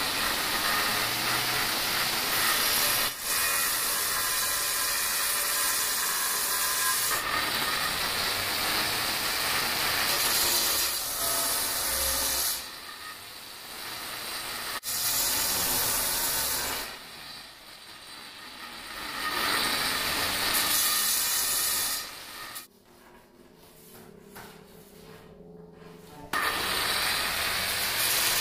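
Large angle grinder with a diamond blade cutting through a black granite slab: a loud, harsh grinding that drops away three times, for a couple of seconds each, between cuts before biting into the stone again.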